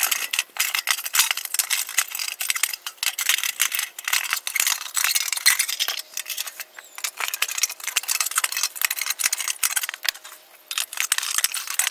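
Metal retaining ring being worked off a full moon hubcap: a continuous run of quick metallic clicks, clinks and rattles.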